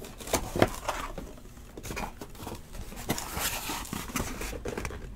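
Hands working in a cardboard shipping case of sealed card boxes: cardboard rustling and scraping, with scattered light knocks and clicks.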